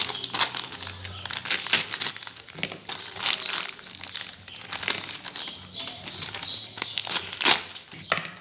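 Irregular crinkling and rustling with scattered light clicks, from handling while the new balancer gear repair parts are readied for assembly.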